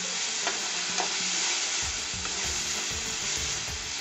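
Freshly added grated onion, with chopped garlic and ginger, sizzling in hot oil in a black kadai while a steel slotted spatula stirs it, with a couple of short scrapes of the spatula against the pan. The onion is still pale, at the start of frying toward golden brown.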